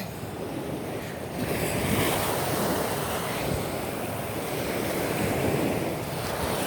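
Gentle Gulf of Mexico surf washing in at the water's edge, mixed with wind on the microphone; the rushing grows louder about a second and a half in.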